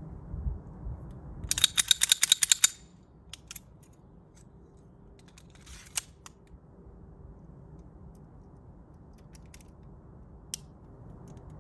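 Makarov pistol being handled. A fast run of about a dozen sharp clicks comes about a second and a half in, then scattered single clicks, one sharper near six seconds and another near ten.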